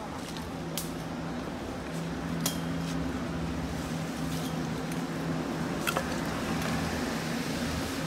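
About four sharp metallic clinks and scrapes as workers clear fallen branches and storm debris with brooms and tools, over a steady low mechanical hum that cuts in and out.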